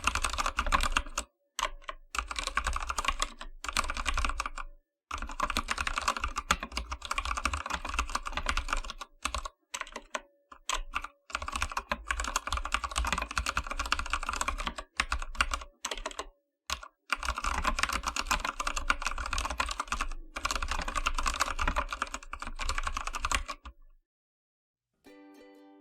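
Typing on an AKKO 3087 tenkeyless mechanical keyboard with Akko Orange tactile switches, comparable to Cherry MX Brown, and PBT keycaps. Rapid key clacks come in runs of a few seconds with short pauses and stop about two seconds before the end.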